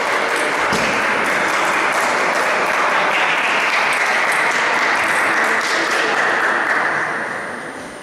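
Spectators applauding between points, a steady clapping that fades out near the end, with faint table tennis ball clicks under it.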